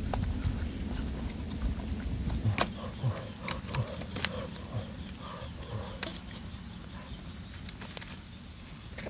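Low wind rumble on the microphone that fades after the first couple of seconds, with a few sharp snaps from the twig kindling of a freshly lit wood fire. Around the middle, a run of short animal calls, about two a second, sounds in the background.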